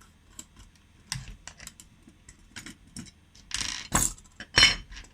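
Light clicks and taps of a small spring-loaded blade tool being handled while its old blade is taken out, with two louder rattling scrapes a little before the end.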